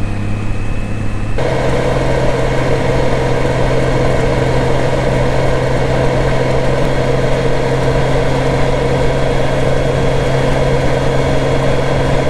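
2016 Honda Gold Wing's flat-six engine running steadily under a haze of wind and road noise. A little over a second in, the sound shifts abruptly to a higher, steady engine hum with more wind noise.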